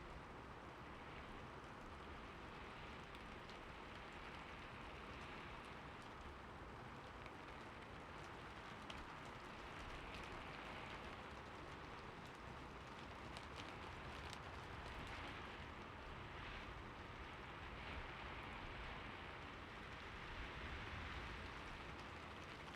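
Heavy rain falling steadily, with scattered sharper drop ticks.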